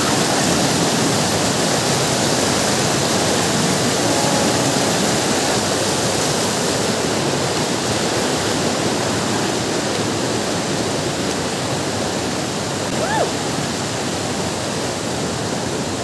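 Steady rushing noise, even and unbroken, with a single short rising-and-falling chirp about thirteen seconds in.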